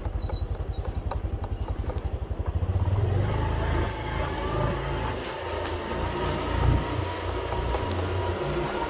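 A small engine running: a rapid, even low pulsing for the first two and a half seconds, then a louder, rougher rumble.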